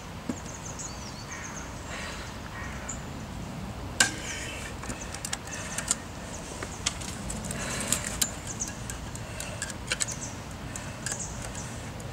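Irregular clicks and scrapes of a small hand tool worked against the bars and slots of a jet surfboard's intake grill, with one sharp click about four seconds in.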